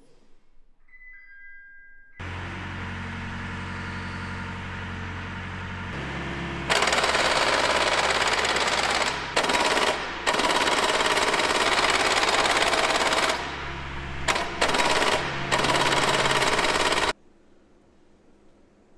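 Industrial machinery: a motor starts with a steady low hum about two seconds in, then a much louder harsh noise runs in long stretches with a few short breaks and cuts off suddenly near the end.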